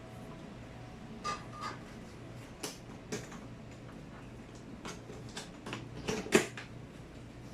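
Irregular clinks and knocks of small hardware and tools being handled, about a dozen in all. Two short ringing clinks come about a second in, and the loudest knock a little after six seconds in.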